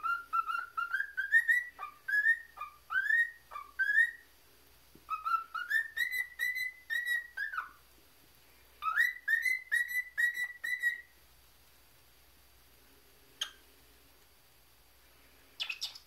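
Cockatiel whistling a tune it has been trained on, in three short phrases of clear notes, most of them sliding up in pitch, with brief pauses between the phrases.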